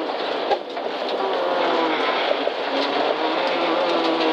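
Toyota Corolla rally car's engine heard from inside the cabin under hard driving: the revs dip briefly about half a second in, then the engine pulls with its pitch rising.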